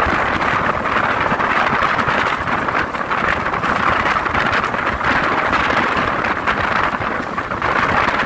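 Pothigai Express passenger train running at speed, heard from the side of a moving coach: a steady rush of air past the microphone over the rumble and clatter of the wheels on the rails.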